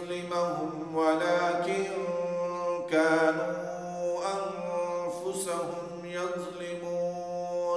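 A man reciting the Quran in Arabic in melodic tajweed style, drawing the words out into long, held notes.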